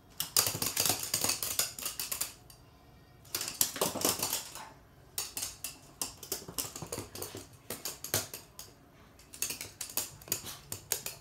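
A toy poodle's claws clicking and scrabbling on a hard wood-look floor as it pounces on and worries a stuffed toy, in four bursts of quick clatter with short pauses between.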